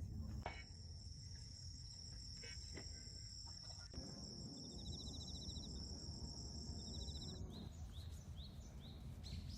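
Crickets or similar insects keeping up a steady high-pitched trill that stops about three-quarters of the way through, with two short bursts of rapid pulsed chirping. Near the end comes a run of short rising chirps, about two a second, over a low outdoor rumble.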